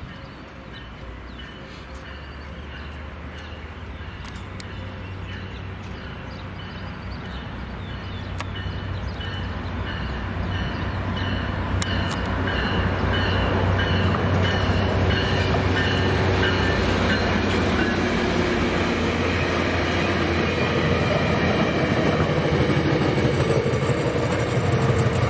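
Diesel-hauled train approaching over a grade crossing, its engine a steady low drone that grows louder for about fourteen seconds and then holds as the train arrives with rail noise. The crossing bell dings evenly and fades out beneath it.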